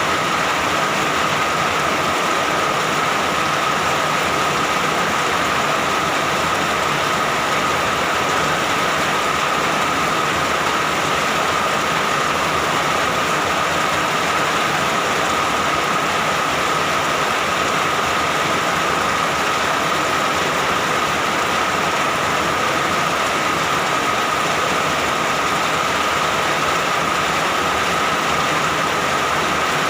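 Steady heavy rain falling, an even continuous hiss, with a faint steady tone running through it.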